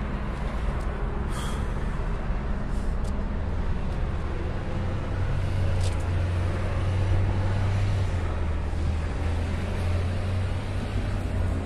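Steady low drone of a motor vehicle's engine and road noise, growing a little stronger about halfway through.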